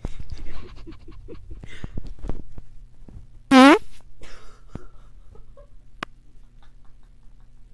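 A loud, pitched fart about three and a half seconds in, lasting under half a second and rising a little in pitch. Softer irregular crackles come before it, and a single sharp click comes a couple of seconds after.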